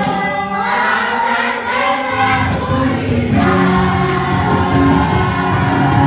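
Choir singing gospel music with amplified keyboard accompaniment. About two seconds in, a deeper bass line joins and fills out the sound.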